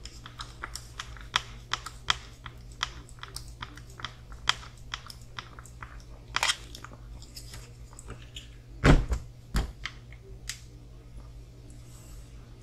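Small plastic parts and tools of a hobby RC car kit being handled on a workbench: scattered light clicks and ticks, with two louder knocks about nine seconds in.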